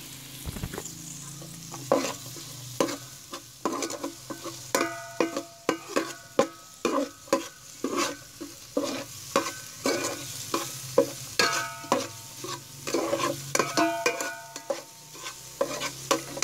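Metal spoon stirring and scraping chopped onion and garlic around a metal pot, clinking many times with a short ringing note. The onions and garlic sizzle softly in the oil underneath.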